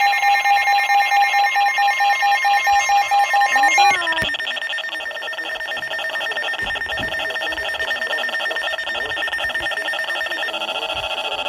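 Weather alert radio's electronic alarm sounding ahead of a severe thunderstorm warning: a loud, rapidly pulsing beeping tone. The pattern changes about four seconds in and again near the end.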